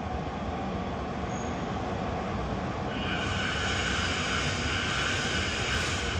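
Electric commuter train running through a station with a steady low rumble; about halfway through a high, steady whine joins in.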